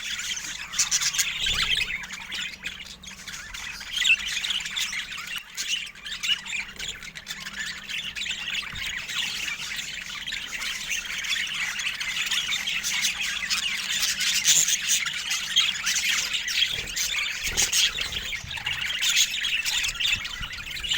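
Budgerigars chattering: a dense, continuous mix of squawks, chirps and warbles with no pauses.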